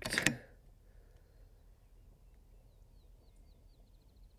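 A bird singing faintly: a string of high chirps about three seconds in, running into a quick trill.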